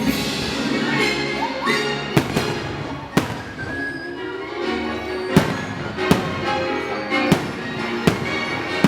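Firework shells bursting in sharp bangs, about six spread through, over orchestral music with strings.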